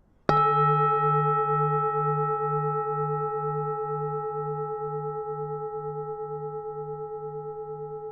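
Buddhist temple bell struck once, then a long ring that slowly fades, its low hum pulsing with a steady wobble about twice a second.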